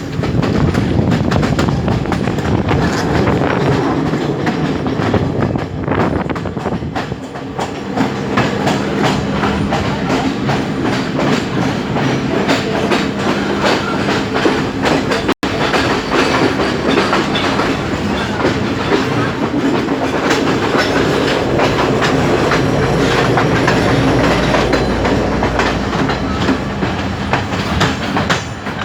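Passenger train running along the line, its wheels clattering over the rail joints with a steady low hum underneath. The sound cuts out for an instant about halfway through.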